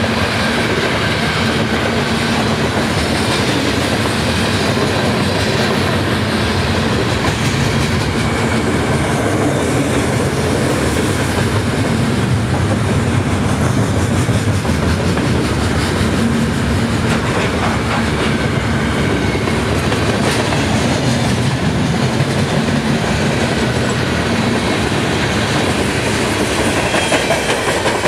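A CN freight train's cars rolling past at close range: a steady rumble of steel wheels on rail with a constant run of clicks.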